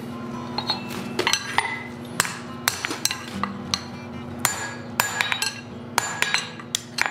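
Hand hammer striking a red-hot steel tong blank over a bending fork in the anvil, forming a bulge in the jaw of box-jaw tongs: a dozen or so uneven blows, each with a short metallic ring.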